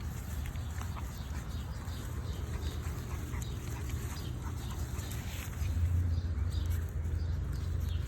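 Sounds from a French bulldog over a steady low rumble, which grows louder about six seconds in, with scattered short faint higher-pitched sounds.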